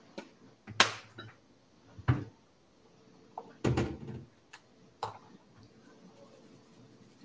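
A few sharp knocks and clatters of kitchen items being handled and set down on a counter, the loudest about a second in and a longer rattle near the middle.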